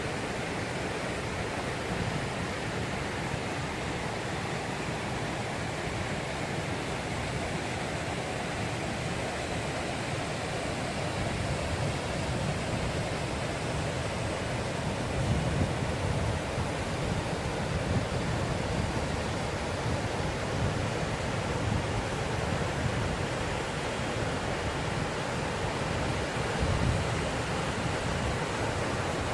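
Waterfall: a steady, unbroken rush of falling water, with a low rumble underneath that swells and eases.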